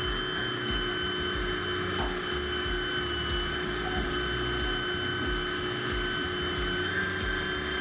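Xenon HPW410 400-watt electric pressure washer running steadily, a constant hum with a higher whine over it, as its water jet sprays against a scooter's underside.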